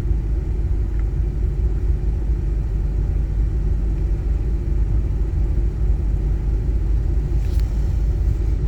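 Ford F250's 5.4-litre V8 idling steadily with a low, even rumble, warmed up and running with its new water pump, coolant temperature holding steady.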